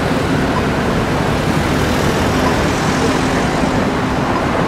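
City street traffic noise: a steady rumble of road vehicles, with an engine humming close by.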